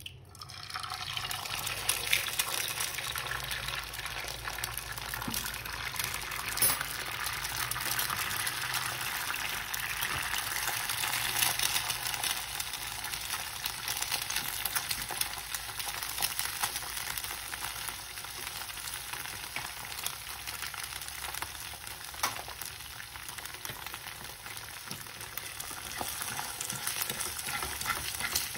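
Food frying in a pan: a steady sizzle with many small crackles.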